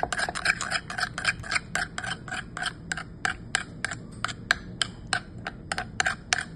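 Metal spoon stirring thick horseradish aioli in a ceramic dish, clicking against the dish about four times a second in an even rhythm that slows a little toward the end.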